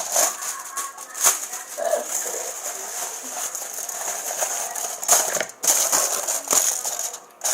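Paper crinkling and rustling with scattered sharp clicks and knocks as a paper cover is worked over a bowl.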